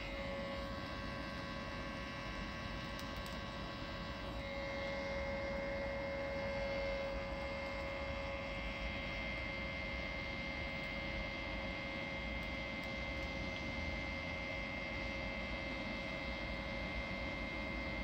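Electric hot-air charcoal lighter running steadily, its fan blowing a jet of air onto charcoal briquettes to light them: a constant whir with a steady high whine.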